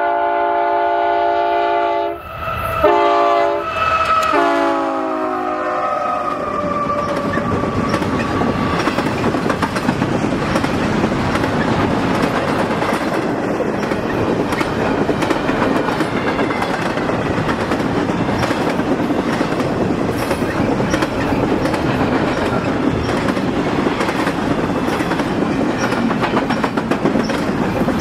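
Union Pacific diesel locomotive's multi-note air horn sounding a long blast, a short one and another long one, its pitch dropping in the last blast as the locomotive passes. Then the steady noise of a double-stack intermodal train's steel wheels running on the rails as the container cars roll by.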